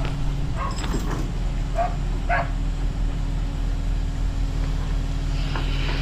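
A dog barking four times in the first two and a half seconds over the steady low running of a heavy truck or crane engine. A short hiss comes near the end.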